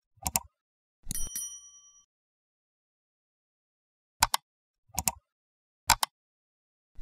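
Sound effects for a like-and-subscribe animation: a mouse double-click, then a bright bell ding that rings out for about a second, then three more quick double-clicks in the second half.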